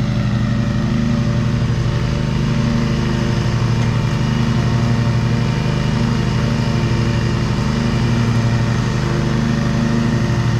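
Cub Cadet riding lawn mower engine running steadily at full throttle with the blades engaged, cutting grass.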